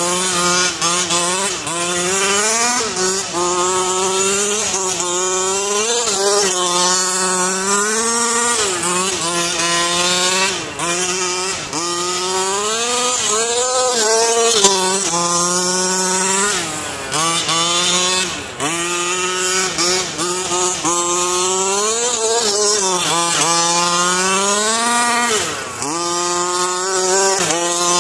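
Rovan LT305 1/5-scale RC truck's 30.5cc two-stroke gas engine running hard, its pitch climbing and falling over and over as the throttle is opened and let off through the laps, with a few brief drops toward idle.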